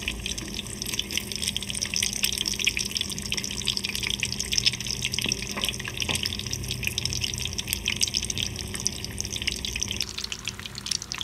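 Stuffed crabs deep-frying in a wok of hot oil: a steady, dense sizzle of many fine crackles.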